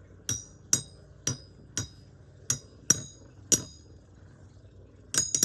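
Metal Fight Beyblade tops clashing as they spin against each other: sharp metallic clinks with a brief ring, about two a second, then a quick flurry of hits near the end.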